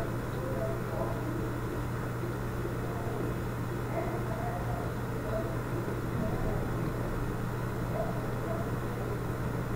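Room tone of a recording: a steady low hum under an even hiss, with faint indistinct sounds scattered through it.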